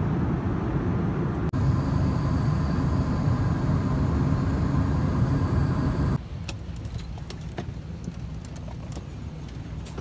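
Steady low drone of an airliner cabin with its engines running. About six seconds in it cuts to a quieter cabin with scattered small clicks and rattles of passengers' bags and belongings.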